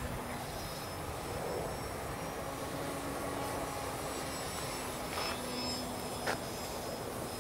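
GB Models Yak-55M radio-controlled aerobatic model plane flying overhead, its engine and propeller a steady drone that drifts slightly up and down in pitch. A sharp click about six seconds in.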